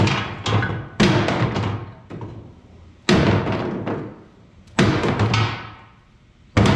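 Engine parts pulled off a 12-valve Cummins being tossed into a parts tote: about five loud clanks at uneven intervals, each ringing out for up to a second.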